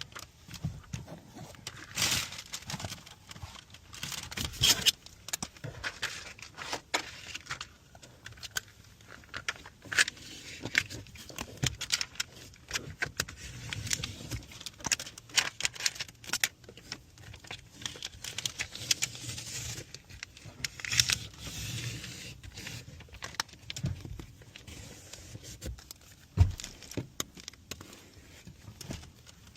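Window tint film being handled and worked on car glass: irregular crinkling, rubbing and scraping with scattered sharp clicks.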